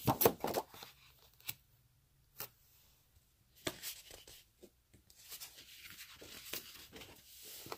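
Sheets of 12x12 patterned scrapbook paper being handled. A sheet rustles and flaps as it is lifted off the stack at the start, a few light taps follow, then a longer soft sliding rustle near the end as the next sheet is drawn across the pile.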